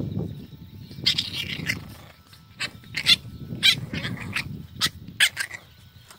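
French bulldog puppies growling and grunting low while play-fighting, with about five short, sharp, high yips scattered through.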